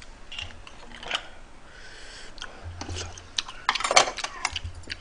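Metal chopsticks clicking and clinking against a metal pot of seafood noodle soup full of mussel and clam shells: a scatter of small clicks with a louder burst of clatter about four seconds in.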